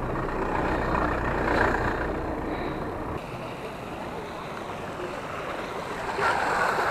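A car's engine running close by as a low rumble that cuts off about three seconds in, then the steady splashing of a park fountain, louder near the end.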